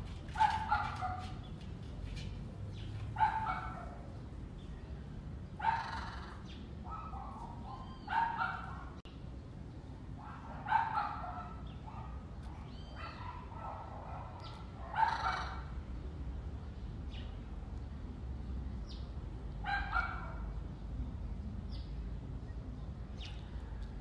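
An animal calling over and over: short, loud, harsh calls about every two to three seconds, with a longer pause near the end, over a steady low rumble.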